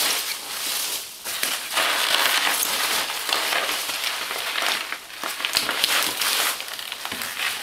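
Hands digging through loose polystyrene packing peanuts in a shipping box, a steady dense rustling and crackling with a brief lull about five seconds in.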